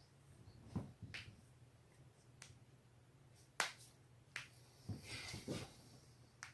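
Human joints being cracked, giving a series of sharp, irregular pops, the loudest about three and a half seconds in, with a short noisier stretch around five seconds in.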